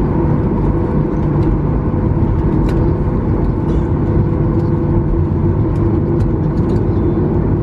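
Steady, loud cabin noise inside a Boeing 737-800 slowing on the runway after touchdown, with ground spoilers up: CFM56 engines running and the wheels rolling, under a constant hum.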